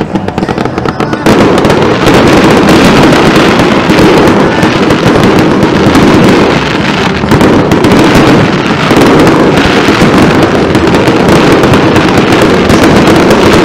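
Fireworks display: a rapid, continuous barrage of loud bangs and crackling, building to full intensity about a second in.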